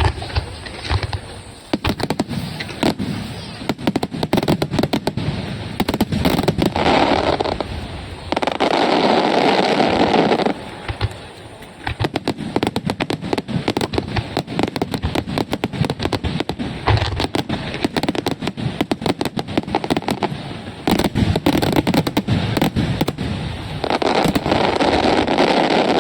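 Aerial fireworks bursting, a continuous barrage of sharp pops and crackles, swelling twice into dense crackling: once about a third of the way in and again near the end.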